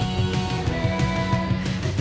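Rock music with guitar over a steady driving beat.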